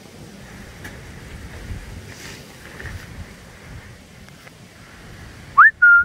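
Low rumble of wind on the microphone, then near the end two loud whistles: a quick upward whistle followed by a short, steady one.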